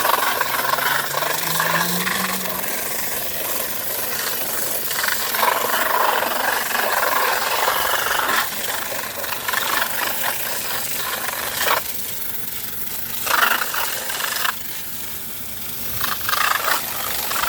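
Garden hose spraying water onto a window air conditioner's coil fins, a steady loud hissing spray, rinsing off the cleaner on the second wash.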